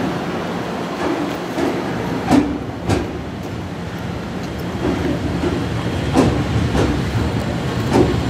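JR Central 211-series electric multiple unit running past: wheels knocking over the rail joints, with some knocks in pairs, over a steady running rumble.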